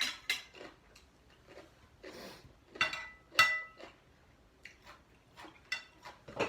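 Cutlery clinking and scraping against plates while eating: a scattering of separate clinks, some ringing briefly, the loudest about three and a half seconds in.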